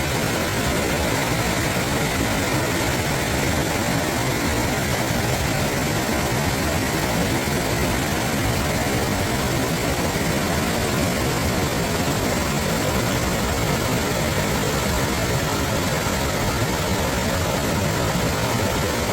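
Waterfall: falling water making a steady, even rushing noise that does not change.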